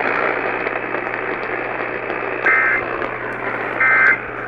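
Emergency Alert System end-of-message data signal over AM radio static: two short, shrill warbling digital tone bursts about a second and a half apart, starting about halfway through. They mark the end of the relayed alert. Before them there is only the steady hiss and hum of the AM broadcast.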